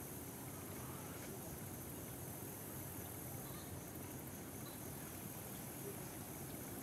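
Steady outdoor ambience: an even, high-pitched insect drone over a low hum, with a couple of faint chirps in the middle.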